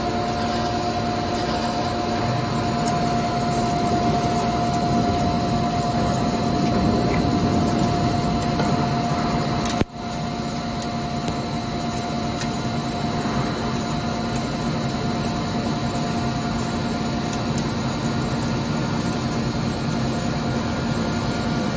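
ALDOOSANLE CNC lathe running and cutting under coolant spray: a steady mechanical hum and hiss with a constant high whine. It breaks off for an instant about ten seconds in, then goes on.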